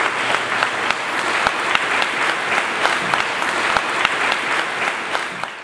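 Audience applauding, a dense crowd of clapping hands that fades out near the end.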